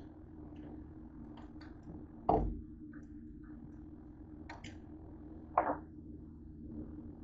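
George Foreman grill's lid being lifted open, with a loud clunk a little over two seconds in, then a second sharp clack about three seconds later; light clicks of handling in between.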